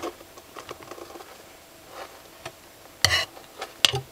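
Leopard gecko seizing a silkworm from feeding tweezers and chewing it: a sharp snap at the start, then scattered small clicks and a louder crackling cluster about three seconds in, with one more click near the end.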